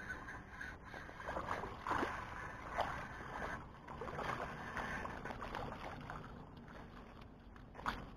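Spinning reel being cranked while a hooked fish splashes and thrashes at the surface as it is drawn in. A sharp thump near the end as the fish is pulled out onto the muddy bank.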